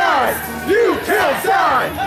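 Small crowd in a hall shouting and cheering, several loud voices at once.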